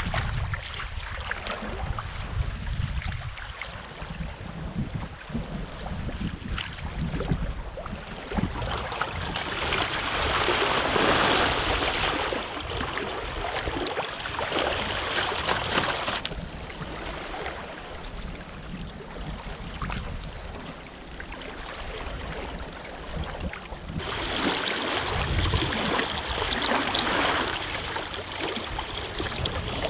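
Water rushing and splashing along the hull of a wooden sailing canoe moving fast through a light chop, with wind rumbling on the microphone. The splashing is brighter and louder from about 9 to 16 seconds in and again in the last few seconds.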